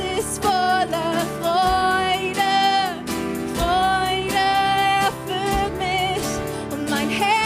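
Live worship-band music: a lead voice sings long held notes over the band, with no clear words.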